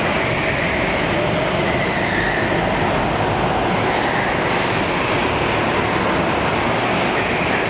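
Several go-kart engines running together in an indoor hall, a steady echoing drone whose pitch rises and falls as the karts accelerate out of and slow into the corners.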